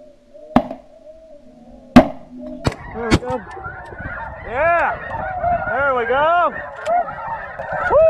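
Shotgun shots, four in about two and a half seconds, the second the loudest. Then a flock of snow geese calling: many overlapping high, arching honks.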